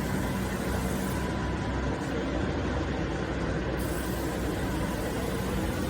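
Y81F-160B hydraulic scrap metal baler running: a steady machine hum under an even noise.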